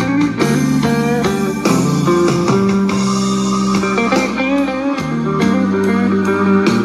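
Guitar music with a strong bass line and a regular beat, played back through a portable Bluetooth speaker for a bass test.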